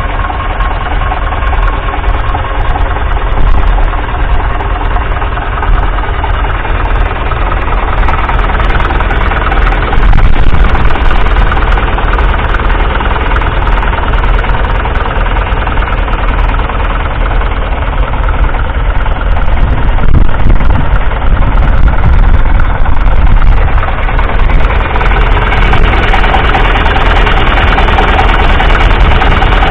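1957 Massey Ferguson 35's 2.3-litre four-cylinder diesel engine idling steadily with a diesel knock, heard close to the engine. It gets a little louder about ten seconds in.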